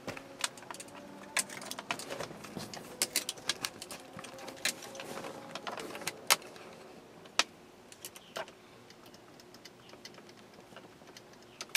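Irregular small clicks, taps and rattles of hands handling plastic and metal parts at the horn contact in a GMC Sierra steering-wheel hub with the airbag removed, busy at first and sparser in the second half.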